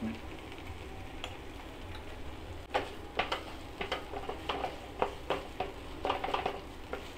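Wooden spatula stirring and scraping a paneer, onion and tomato mixture in a nonstick frying pan, with a light sizzle. The stirring starts about three seconds in as quick scrapes, roughly two a second.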